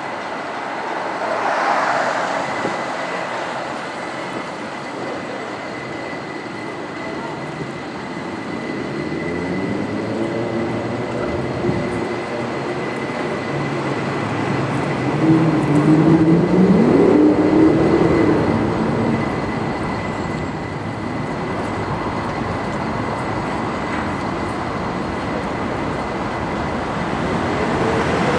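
A rail vehicle running by, with a whine that glides up and down in pitch through the middle, loudest about two-thirds of the way in.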